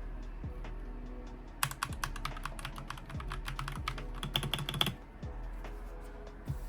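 Keystrokes on a Royal Kludge RK84 mechanical keyboard with yellow switches: a fast, dense run of key clacks starting about a second and a half in and lasting about three seconds, with a few scattered taps before and after.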